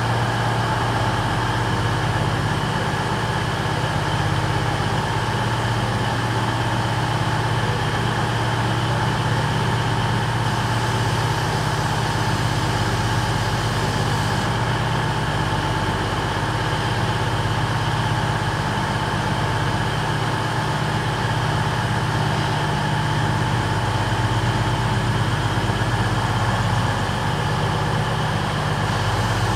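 Diesel multiple unit idling at the platform: a steady low engine hum with a few steady whining tones above it.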